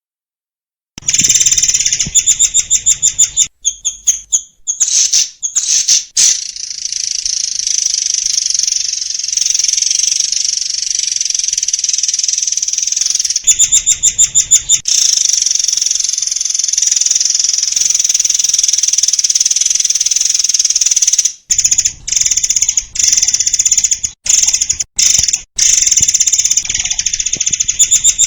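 Murai air song: after about a second of silence, rapid, closely repeated high-pitched notes, running into a long unbroken high trill with a burst of quicker notes in the middle, then breaking again into rapid notes near the end.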